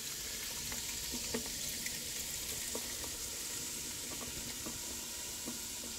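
Canada Dry ginger ale poured in a stream onto ice cubes in a glass bowl: a steady fizzing hiss of carbonation and splashing, with scattered small clicks from the ice and bursting bubbles.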